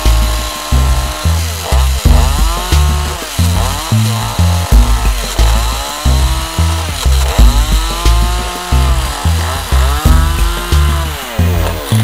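A chainsaw cutting into a wooden block, its engine pitch rising and falling about once a second as it bites. Background music with a heavy bass beat plays over it.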